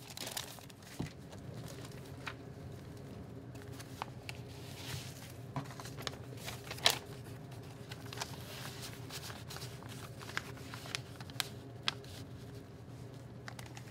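Paper rustling and crinkling as magazine pages and paper scraps are handled, with scattered light taps and clicks, the sharpest about halfway through, over a steady low hum.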